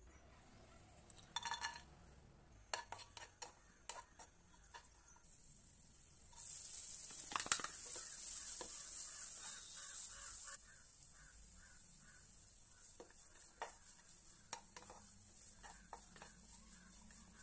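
A few light taps and clicks, then a burst of sizzling about six seconds in as grated carrot goes into hot ghee in a nonstick pan; the loud hiss drops away after about four seconds. A wooden spatula then stirs and scrapes the carrot and cashews in the pan, with a run of light knocks over a quieter sizzle.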